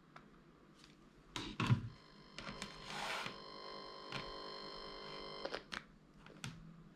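Sharp clicks and taps of something being handled, with a steady electronic tone of several pitches that starts about two seconds in and stops about three and a half seconds later.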